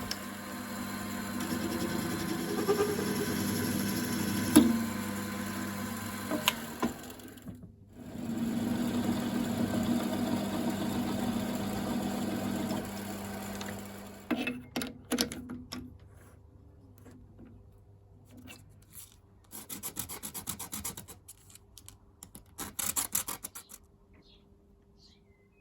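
Small bench-top metal lathe running with a steady hum, with something rubbing against the spinning workpiece. It stops briefly about seven and a half seconds in and runs again, then shuts off around thirteen seconds in, after which come short, irregular rubbing strokes.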